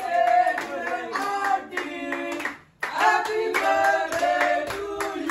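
A group of people singing together while clapping their hands in rhythm; the sound cuts out for a moment about halfway through, then carries on.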